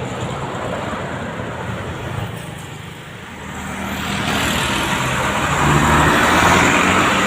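Road traffic: a vehicle engine running, fading a little, then another vehicle approaching and growing louder from about halfway through.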